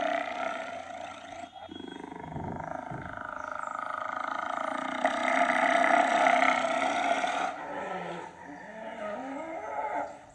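Hyena calling in long, drawn-out pitched cries, broken briefly about a second and a half in, with shorter rising calls near the end.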